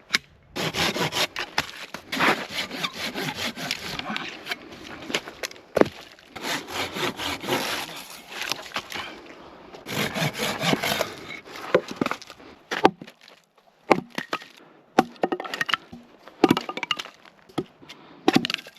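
A hand saw cutting firewood in quick back-and-forth strokes over three long stretches, followed by a series of separate sharp knocks and snaps of wood.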